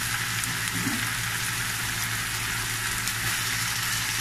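Kimchi sauce sizzling steadily in a frying pan on the stove, over a steady low hum.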